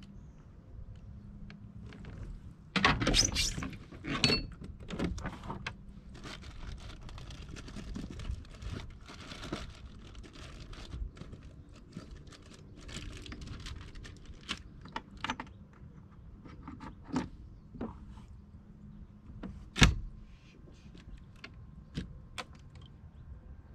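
Clicks, rattles and knocks of fishing gear being handled aboard a plastic kayak, with a cluster of louder knocks a few seconds in and one sharp knock near the end.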